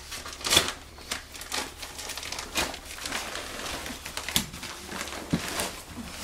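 Pink paper-faced fiberglass insulation being pulled off its roll and torn apart by hand: irregular rustling and crinkling of the paper facing and batt, with a few sharper crackles.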